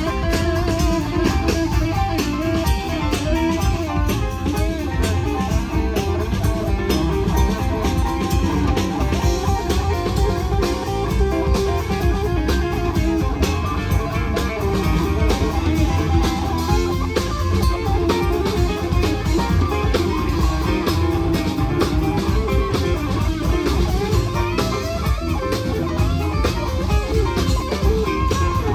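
Live band playing a song, with guitar to the fore over a steady beat.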